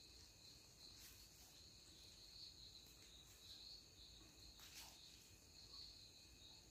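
Near silence: faint room tone with a steady high-pitched hiss and a faint tick about five seconds in.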